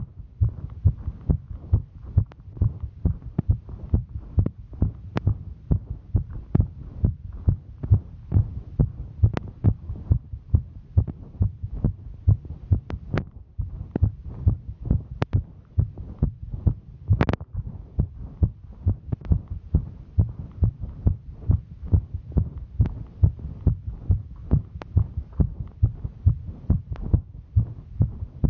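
A woman's heartbeat thudding in a fast, regular rhythm of roughly two beats a second, quickened by the exertion of hiking. A few sharp clicks sound over it now and then.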